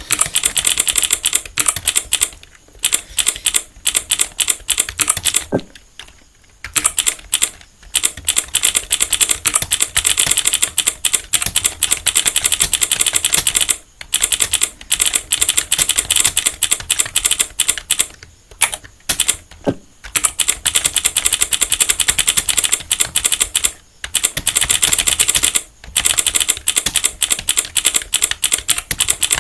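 Computer keyboard being typed on continuously, a rapid stream of key clicks at about 40 words per minute during a typing test, with several brief pauses.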